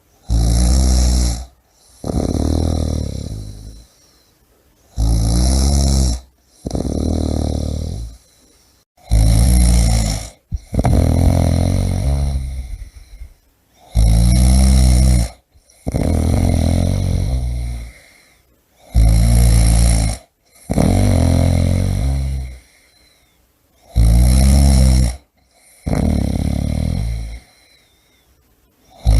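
A person snoring steadily, a rattling snore about every five seconds, six times. Each loud snore is followed by a longer, softer breath that fades out before a short pause.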